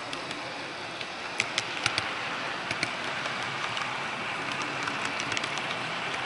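Model passenger train running along its track, heard close up from on board: a steady rushing noise from the wheels and running gear, with scattered sharp clicks, a cluster of them between about one and three seconds in.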